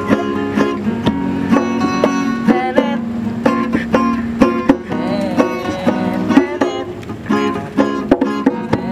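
Background music: a plucked string instrument playing quick, rapid notes over a steady sustained drone.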